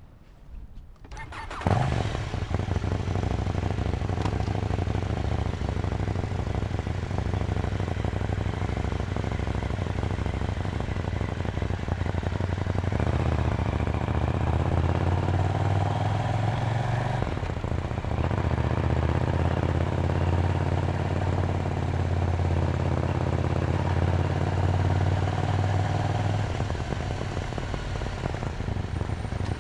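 KTM 790 Duke's parallel-twin engine starting about two seconds in, then running steadily. It grows louder about halfway through and eases back near the end.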